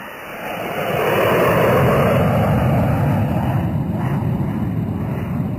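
Loud rushing noise like an aircraft passing overhead, swelling about a second in and slowly easing off.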